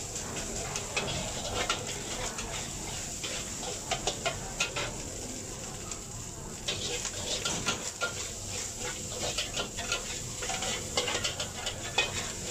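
Metal wok spatula scraping and clanking against a carbon-steel wok as fried rice is tossed, in quick irregular strokes with a short lull about halfway through, over a steady sizzling hiss from the hot pan.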